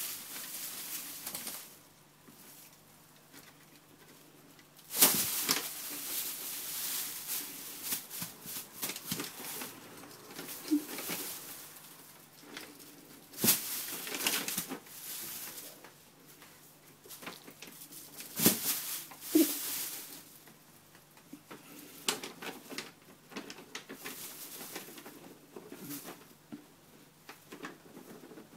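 Thin plastic bag crinkling and rustling in irregular bursts as a cat shifts and paws inside it, with a few louder crackles about five, thirteen and eighteen seconds in.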